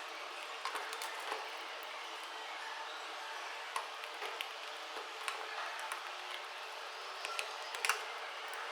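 Scattered light clicks and taps of screws and a screwdriver on an angle grinder's housing as it is screwed back together, over a steady hiss.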